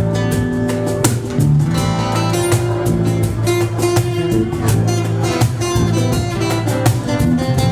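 Instrumental passage of an acoustic song: acoustic guitar strummed in a steady rhythm over sustained low notes, with no singing.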